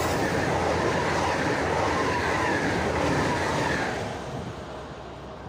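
High-speed electric multiple unit passing close by at speed: a loud rush of wheel, rail and air noise that fades quickly after about four seconds as the last car goes by.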